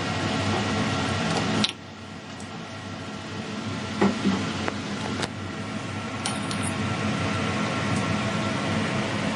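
Emco Turn 220 CNC lathe running with a steady mechanical hum. The noise drops suddenly about two seconds in, then builds back up gradually, with a few sharp clicks around four to five seconds in.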